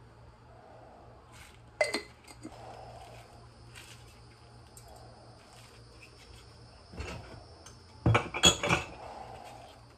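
Terracotta pots and wooden kitchen utensils knocking and clinking as they are handled and set down. A couple of sharp clinks come about two seconds in and a knock about seven seconds in. Near the end comes the loudest part, a quick run of clatters as wooden spoons are picked up.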